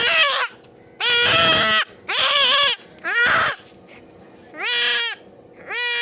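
Goat kid bleating loudly over and over, about six cries of half a second to a second each, with a short pause around the middle.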